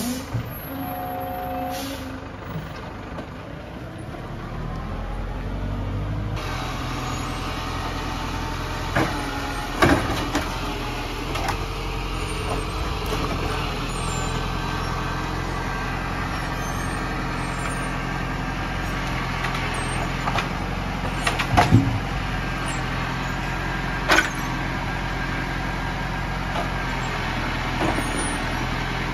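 Zetor Forterra 140 HSX tractor's four-cylinder diesel engine running steadily, powering the trailer-mounted loading crane as logs are unloaded, with a few sharp knocks of logs and crane parts about 9–10 seconds in, twice around 22 seconds and once about 24 seconds in.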